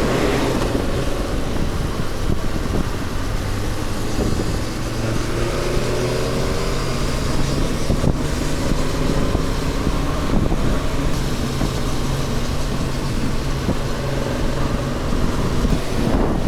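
Motorcycle engine running under way, with road and wind noise; a few seconds in, the engine's pitch rises as it accelerates.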